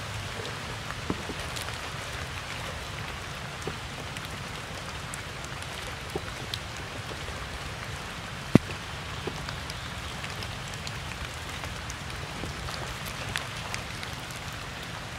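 Steady rain falling on puddles and wet stone, with scattered drop ticks. A single sharp tap stands out about halfway through.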